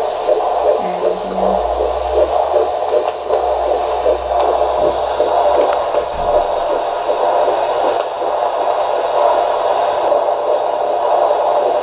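A 13-week fetal heartbeat heard through a Doppler ultrasound: a fast, even, pulsing beat over hiss, with the mother's slower heartbeat underneath.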